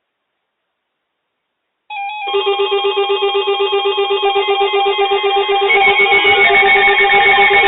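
Music with a steady pulsing beat of electronic, guitar-like tones starts suddenly about two seconds in and grows louder near the end.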